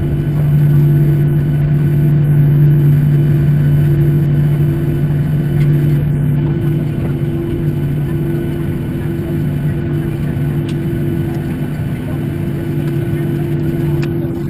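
Boeing 737-800's CFM56 jet engines heard from inside the cabin at taxi power: a steady low hum with two strong low tones over an even rush of noise.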